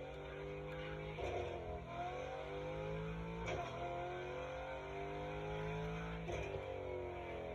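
Shelby Mustang V8 engine blipped under light throttle about three times, with the revs sagging back after each blip over a steady low idle.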